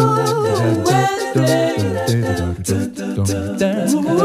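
Background music: an a cappella song, several voices holding and gliding between sustained notes over a low sung bass part, with light clicking percussion.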